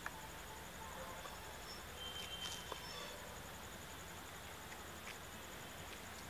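Crickets chirping in a steady, fast high trill over faint background hiss, with a few faint clicks and short tones about two to three seconds in.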